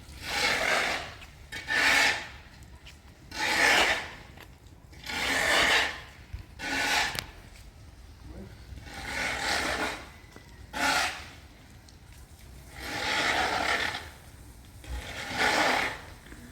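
Slow, rhythmic rasping strokes on wood, about one every one and a half to two seconds.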